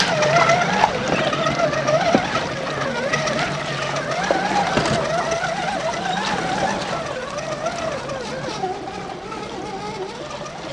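Scale RC crawler's brushed electric motor and gear transmission whining, the pitch wavering up and down with the throttle, with a few short knocks along the way. It slowly grows fainter as the truck drives off.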